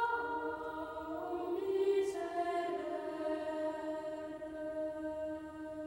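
Slow choral music: voices holding long notes together, the chord moving to new pitches a few times.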